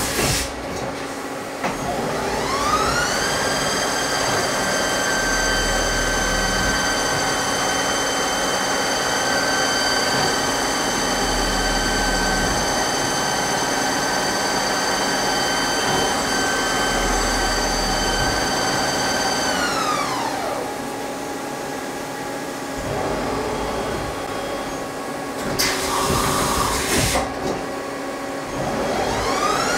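Mazak CNC lathe running a part with flood coolant spraying: the spindle motor whine rises about two seconds in, holds a steady pitch, winds down around twenty seconds in, and rises again near the end. A short burst of hiss comes about twenty-six seconds in.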